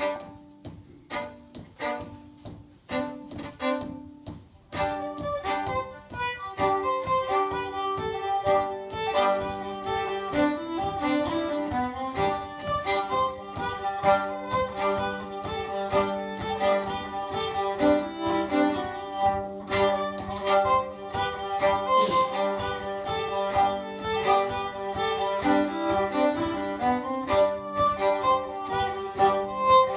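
Live folk music on fiddle with accompaniment: a few seconds of sparse single notes, then the full tune comes in about five seconds in with a steady pulse.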